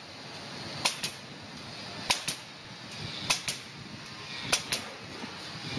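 Air-fed Kodi Klip gun setting plastic rebar clips on a rebar mat: four double clicks, about one every 1.2 s, each two sharp snaps a fifth of a second apart.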